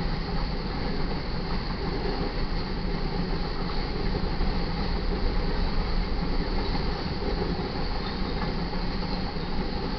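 A freight train's covered hoppers and boxcars rolling past on steel wheels: a steady rumble of wheels on rail, with no break or change.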